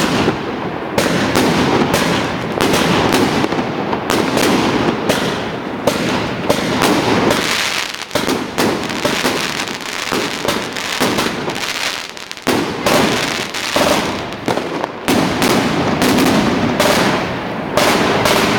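New Year fireworks going off in a dense, continuous barrage: many overlapping bangs and crackles with no real pause.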